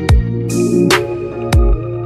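Electronic background music with a steady beat: deep kick drums that drop in pitch, sharp snare-like hits and held synth notes.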